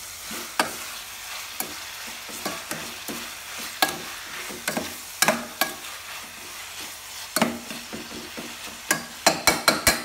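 Metal spoon stir-frying sliced buffalo calf skin and tomatoes in a metal pot: irregular clinks and scrapes of the spoon against the pot over a steady sizzle, with a quick run of clinks near the end.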